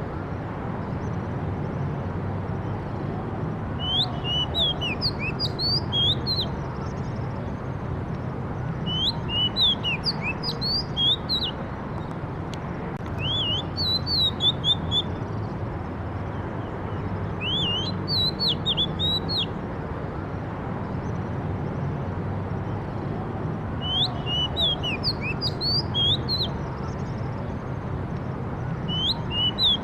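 A bird singing in a forest: short phrases of quick, sharp, slurred whistles, one phrase every five or six seconds, over a steady low rumble of background noise.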